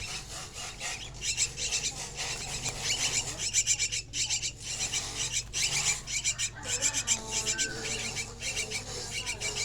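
Jalak chicks begging for food with rapid, harsh, raspy repeated calls.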